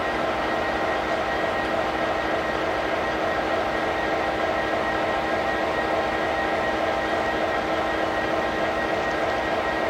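Diesel freight locomotive running steadily: an even drone with several constant whining tones that do not change in pitch.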